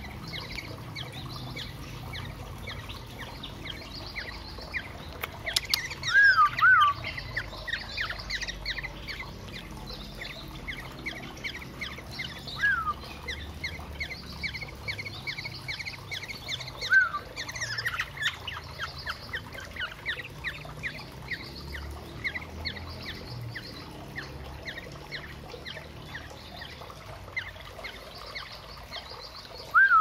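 Begging calls of cage birds waiting to be hand-fed, a yellow-vented bulbul and a black-naped oriole chick: rapid chirping throughout, broken by loud, short, down-slurred calls, a pair about six seconds in, single ones around thirteen and seventeen seconds, and another pair at the end.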